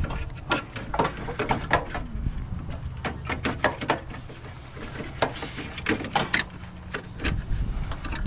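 Irregular clicks, knocks and rubbing of hands handling plastic and metal parts as a wiring connector is pushed onto a new car horn.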